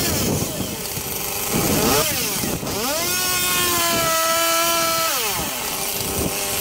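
Chainsaw cutting a limb. It gives a short rev about one and a half seconds in, then is revved up and held at full throttle for about two seconds before the revs fall away.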